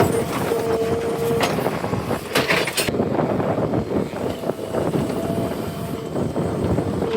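JCB 3DX backhoe loader's diesel engine working under load, with a continuous rattle and clanking of machinery. A steady two-note whine sounds in the first second and a half and again near the end, and a short hiss comes about two and a half seconds in.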